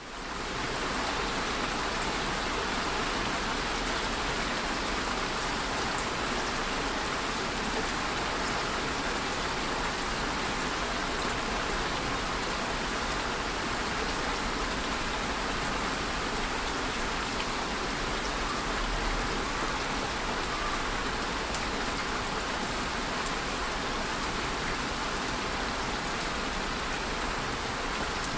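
Steady rain falling and pattering on a surface, with scattered drop ticks, fading in at the very start.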